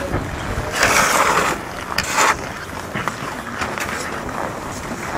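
Aerial ropeway machinery running: the cables and sheave wheels clatter and rattle, with louder surges about one and two seconds in.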